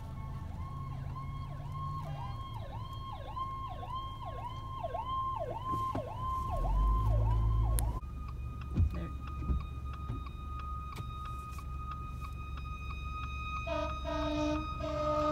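An ambulance siren in a fast yelp, its pitch sweeping up and down about twice a second, with a low rumble swelling just before it stops abruptly. Then a fire tiller ladder truck's siren holding a steady high tone, with a string of short air horn blasts near the end.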